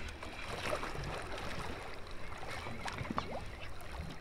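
River water lapping with small splashes, over a low rumble.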